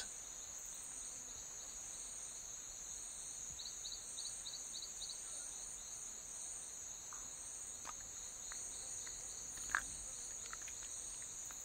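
A steady, high-pitched chorus of insects droning. A few seconds in comes a short run of about six quick chirps, and later a few faint clicks and short chirps, the clearest one near the end.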